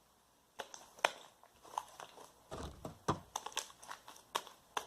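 Borax-activated jiggly slime being squeezed and kneaded by hand, giving off irregular small clicks and sticky pops, starting about half a second in.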